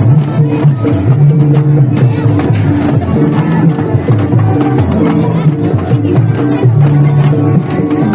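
Loud music with a bass line of held notes that change every half second or so, and light percussion over it.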